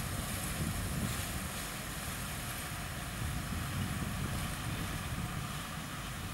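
Heavy diesel cane machinery rumbling steadily at a distance, with wind buffeting the microphone.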